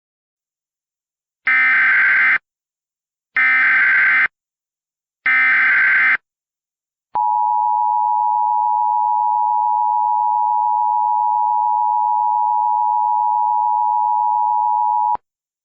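Emergency Alert System header: three one-second bursts of SAME digital data tones about two seconds apart, then the steady two-tone EAS attention signal (853 and 960 Hz) held for about eight seconds and cut off abruptly. It is the coded header that opens a new alert, here a tornado warning.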